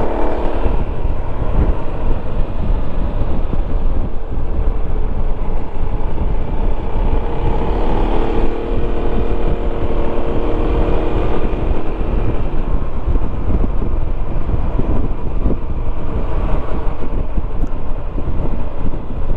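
Yamaha XMAX 300 scooter's single-cylinder engine running on the move under heavy wind rush on a helmet-mounted microphone, with the helmet visor open. The engine note stands out more clearly from the wind for a few seconds in the middle.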